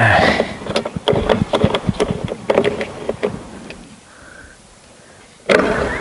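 Knocks and clatters of hands working at the plastic housing of an unplugged electric garden shredder, opening it up to free a rotor jammed by a branch. Dense knocking for about three seconds, a quieter stretch, then more clattering near the end.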